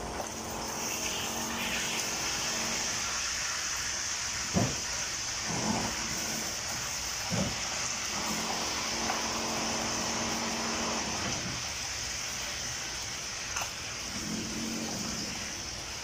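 Chicken sizzling as it fries in oil in a frying pan, a steady hiss, with a spatula knocking and scraping against the pan a few times.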